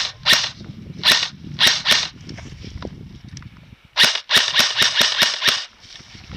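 Airsoft guns firing BBs: a few single shots, a lull, then a quick string of about eight snapping shots near the end.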